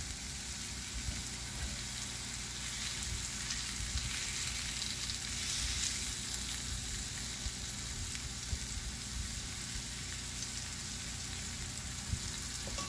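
Blackened chicken breasts sizzling steadily as they sear in a cast-iron ridged grill pan.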